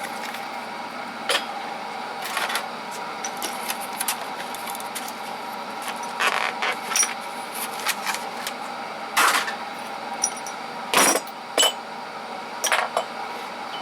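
Metal hand tools, files among them, clinking and clattering as they are picked up, sorted and set down, with a handful of louder clanks. A steady hum runs underneath.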